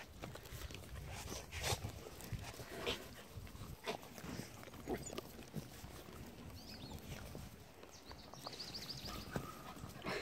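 Puppies scuffling and playing on dry grass: scattered short rustles and scuffs, with a few small puppy sounds.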